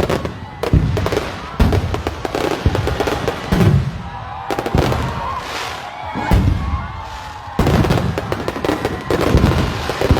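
Aerial fireworks going off: a string of heavy bangs roughly a second apart, with crackling between them.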